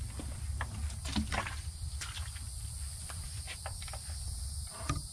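Insects trilling steadily in two high pitches, with a low steady rumble underneath and a few short rustles and clicks scattered through, the loudest about a second in and near the end.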